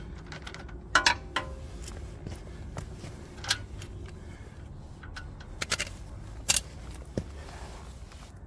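Scattered metallic clinks and knocks of hand-tool work on a motorcycle's swing arm hardware, a few sharper ones about a second in and near six and a half seconds, over a steady low hum.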